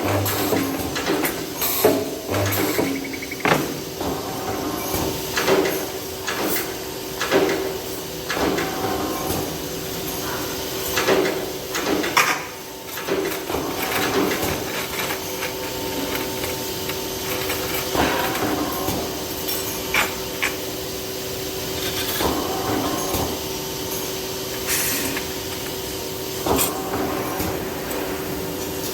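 Factory metalworking machinery: a steady machine hum with irregular sharp metallic clunks and clicks, more frequent in the first half, of the kind a metal press or spot welding machine makes in use.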